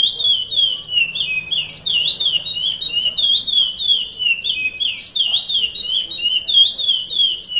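Male curió (chestnut-bellied seed finch) singing the Paracambi 'rompe nuvem' song: an unbroken run of quick, clear whistled notes that slide up and down in pitch.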